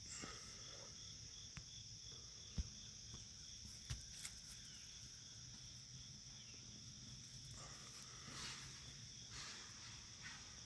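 Faint steady chorus of insects such as crickets, with a few soft clicks about a third of the way in.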